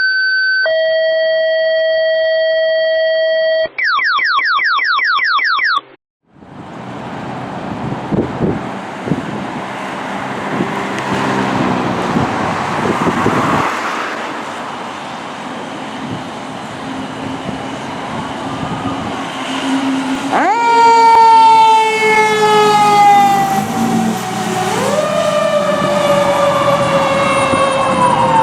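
Fire dispatch alert tones open the clip: steady paired tones, then a rapid repeating rising sweep, cutting off about six seconds in. Street and engine noise follow, and from about 20 seconds in fire apparatus sirens sound: one electronic wail falls slowly while a second rises, turning to a fast yelp near the end.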